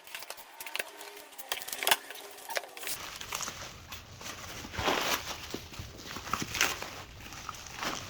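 A package being opened by hand: scattered clicks and knocks with rustling and scraping of packaging, loudest about five and six and a half seconds in.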